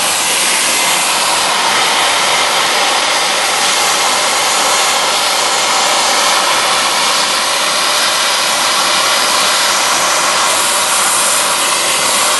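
Hand-held hot air plastic welding gun blowing a steady rush of hot air, its fan running without a break while the nozzle heats the edge of a plastic patch to tack it in place.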